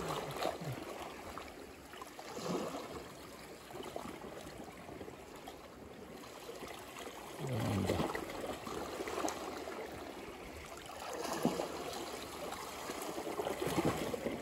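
Small waves lapping and sloshing against shoreline rocks, swelling every few seconds.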